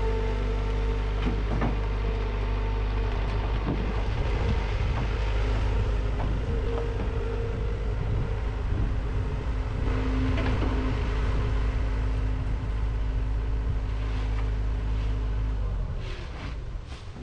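Skid steer loader engine running steadily as the machine climbs onto and moves along a flatbed equipment trailer. Its sound drops away sharply near the end, followed by a few metallic clanks.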